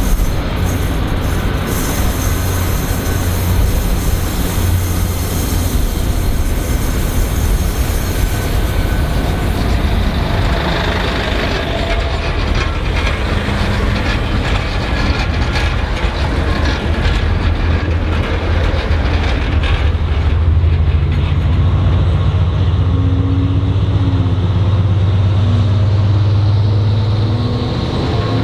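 Train running past: a steady heavy rumble with wheel-on-rail noise and a few sharp clicks near the start. A low, steady locomotive drone grows louder about two-thirds of the way in.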